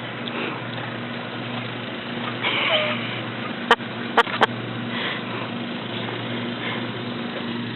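Puppies eating from a stainless steel pan, with three sharp metallic clinks a little past the middle, over a steady low hum.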